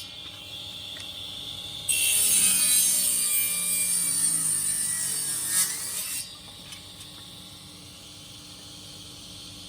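A saw cutting through wood: a steady, hissing cut starts about two seconds in and stops after about four seconds. A faint steady hum remains afterwards.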